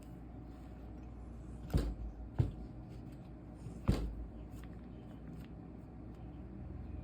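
Three sharp knocks over a low steady hum, the first and last the loudest.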